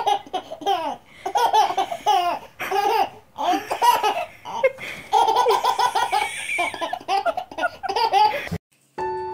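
A baby laughing hard in short repeated fits, with one longer laugh about five seconds in. The laughter cuts off suddenly near the end and piano music begins.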